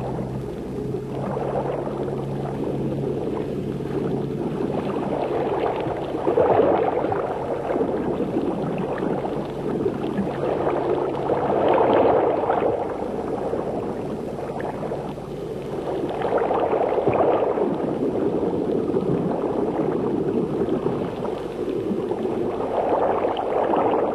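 Underwater bubbling and rushing water, swelling in surges about every five seconds, with a steady low hum underneath for the first few seconds.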